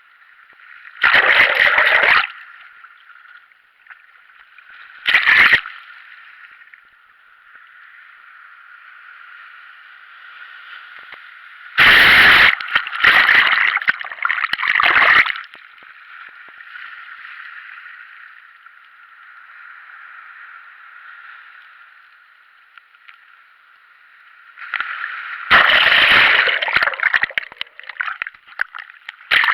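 Sea water sloshing and gurgling, broken by loud splashes: one about a second in, a short one at about five seconds, a cluster in the middle, and a longer run near the end.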